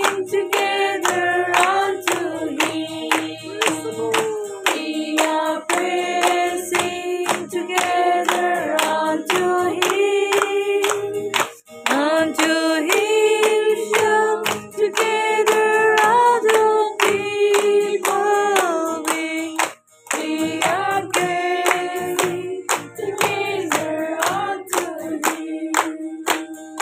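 A group of voices singing a worship song together, clapping in time about twice a second, with an acoustic guitar accompanying. The singing breaks off briefly twice between lines.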